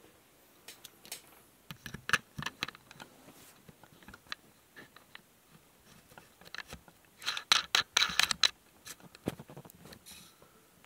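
Handling noise from hands adjusting a camera rig with a shotgun microphone: irregular clicks, taps and short scrapes. A denser, louder burst of rubbing and scraping comes about seven to eight and a half seconds in.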